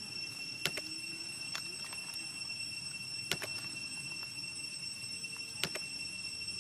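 A steady high-pitched whine with four sharp clicks spread across it, over faint low background noise.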